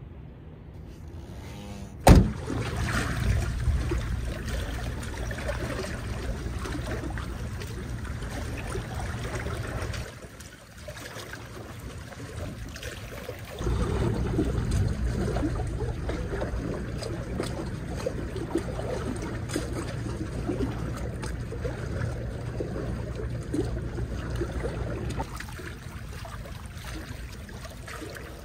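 Seawater sloshing and lapping around concrete breakwater blocks, with a steady low rumble. A single sharp knock comes about two seconds in, and the sound gets louder and quieter in stretches.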